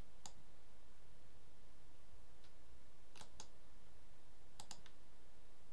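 Several sharp computer mouse and keyboard clicks, a pair about three seconds in and a quick cluster near the end, over a steady faint hiss.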